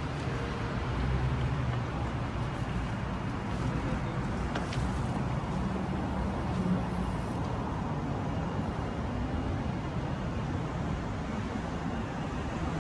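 Steady city street traffic noise: passing cars make a continuous low rumble.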